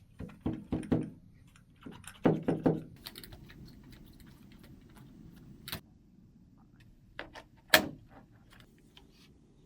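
An RC car and its packaging being handled during unboxing: a series of short knocks, clicks and clatters in two clusters early on, then isolated clicks, with the loudest knock near the end.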